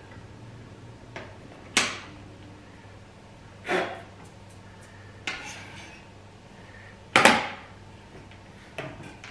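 Thermal cooker's plastic outer lid and carry handle being handled: a handful of separate clacks and knocks a second or two apart, the loudest about seven seconds in.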